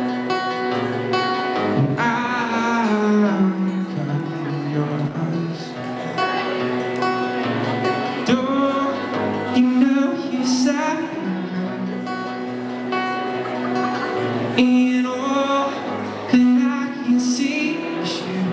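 Live music: a steadily strummed acoustic guitar with a man's singing voice coming in and out over it, heard through a PA.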